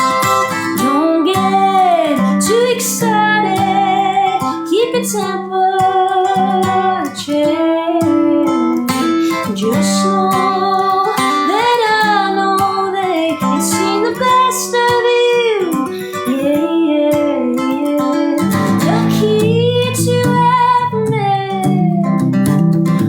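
A woman singing with her own acoustic guitar, strumming chords under the melody; the strumming grows fuller about three-quarters of the way through.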